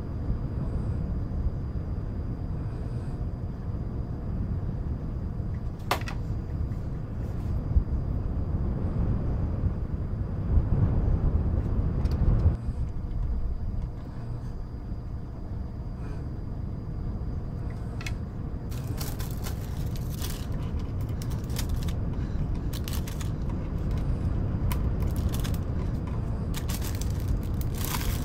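Steady low rumble of layered wind and white noise. Over it come scattered sharp clicks of jigsaw puzzle pieces being tapped and sorted, a few at first and then many in quick succession from about two-thirds of the way in.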